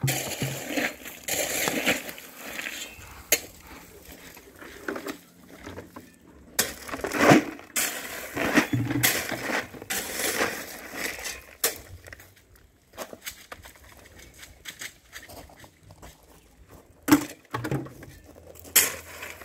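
Steel shovel scooping into a pile of crushed stone and tipping it into buckets: a repeated crunching scrape, with gravel rattling as it drops.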